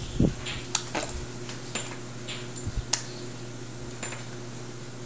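A few sharp knocks and taps on a plastic high-chair tray, the two loudest about two seconds apart, over a faint steady hum.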